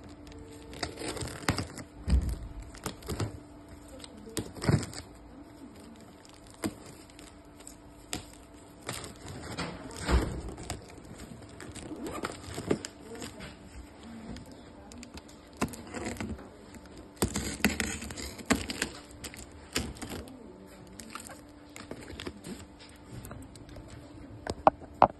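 A cardboard parcel wrapped in plastic film being handled and cut open by hand: irregular knocks and taps on the box with rustling and crinkling of the plastic, over a faint steady hum.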